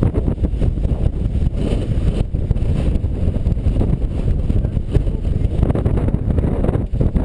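Wind buffeting a helmet-mounted camera's microphone: a loud, steady rumble.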